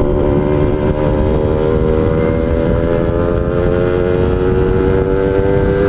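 Suzuki Tornado GS two-stroke motorcycle engine running at high revs while riding fast, its note climbing slowly and steadily. A low rush of wind and road noise runs underneath.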